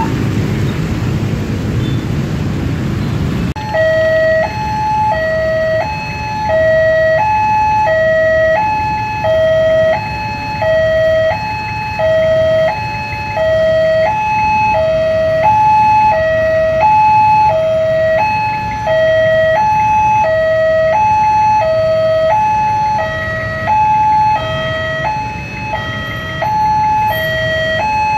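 Railway level-crossing warning alarm sounding a repeating two-tone hi-lo signal, a higher and a lower tone alternating about once a second. For the first few seconds a low rumbling noise is heard instead, before the alarm tones come in.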